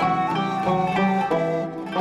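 Background instrumental music: a melody on plucked strings, each note sounding with a sharp attack and ringing on, over lower bass notes.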